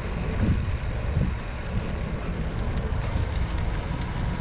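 Wind buffeting the microphone of a camera riding along on a moving bicycle: a loud, uneven rumble with a thinner hiss above it.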